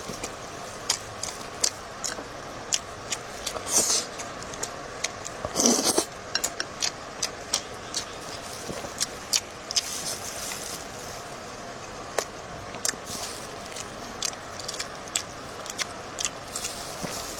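Close-miked eating sounds: wet chewing and mouth clicks coming every fraction of a second, with two louder noisy bursts about four and six seconds in.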